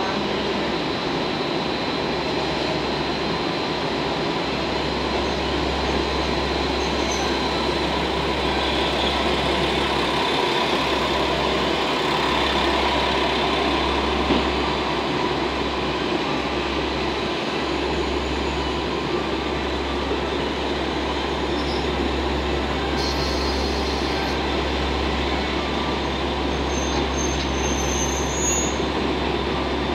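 JR West 115 series three-car electric train running slowly in over station pointwork: steady train and wheel noise, with a low hum that sets in about four seconds in.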